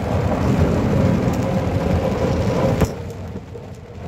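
Heavy rain on a moving car, heard from inside the cabin, over a steady road rumble. A single sharp click comes a little before three seconds in, and the sound then drops for the last second.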